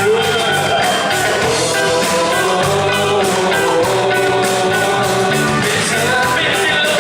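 Band song with singing over bass and a steady drum beat, playing at an even level.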